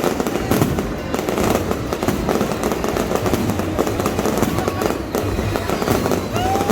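Fireworks display: a dense run of bangs and crackling bursts going off one after another.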